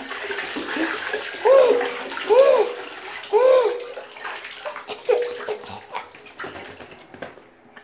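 Water sloshing and splashing in a filled bathtub as a plush toy is dunked into it. Four short rising-and-falling tones sound over the water in the first five seconds.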